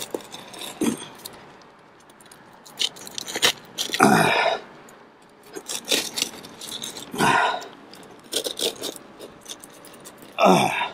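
Knife blade cutting through a granulated two-ply modified bitumen torch-down roof membrane: scratchy scraping and crunching of the blade through the mineral surface, with louder rasping strokes about four, seven and ten seconds in.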